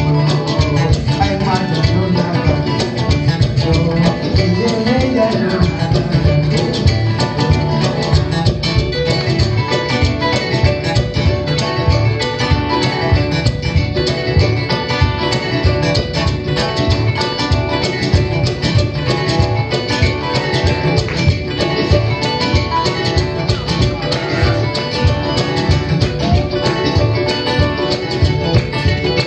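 Live acoustic band music: guitar and kamale ngoni (a West African harp-lute) plucking busy, interlocking lines over a fast, steady pulse, in a blend of bluegrass and West African styles.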